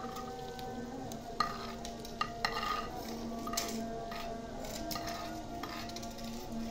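Metal ladle scraping fried okra out of a clay bowl and stirring it into a steel pot of sizzling meat and onions, with a few sharp clinks of the ladle against bowl and pot in the first half.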